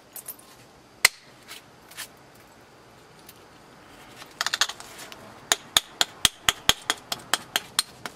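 A knapping tool clicking against the edge of a Buffalo River chert slab: a few scattered sharp clicks, then from about halfway a steady run of sharp clicks, about four a second.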